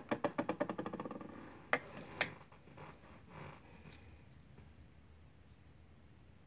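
A quick rattling run of small clicks that dies away over about a second and a half, then two sharp clicks about two seconds in, a few faint ticks near four seconds, then quiet.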